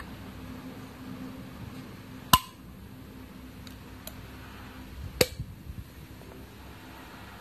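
Alloy bicycle wheel hubs clinking against each other as they are handled: two sharp metallic knocks about three seconds apart, the first ringing briefly, with a few small ticks between them. A steady low hum runs underneath.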